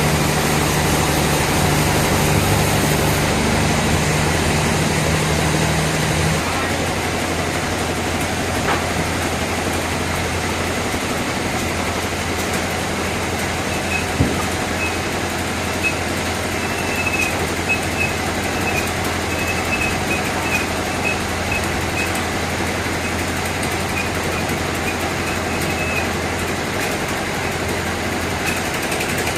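Sawmill machinery running steadily with a constant low hum. A deeper tone drops out about six seconds in, a single knock comes about halfway, and a faint high whine runs through the second half.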